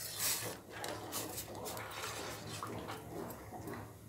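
A steel spoon stirring milky masala tea in a stainless steel pot: liquid swirling, with a few light scrapes and clinks of the spoon against the pot.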